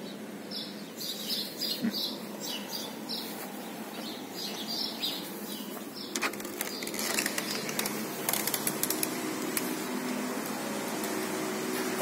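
Birds chirping in repeated short, high calls through the first half. About six seconds in comes a sharp click of a door latch, followed by a steady hiss with scattered clicks.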